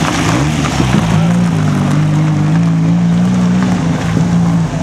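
Vintage open racing sports car's engine running at low revs as it drives slowly past and pulls away. The engine note dips, rises a little and then holds steady.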